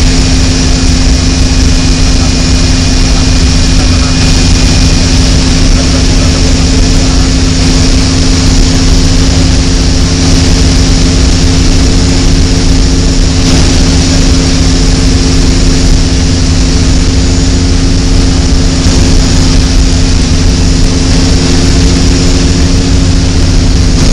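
DHC-6 Twin Otter's twin turboprop engines and propellers droning steadily, loud inside the cockpit on final approach, with a constant low propeller hum under rushing air noise.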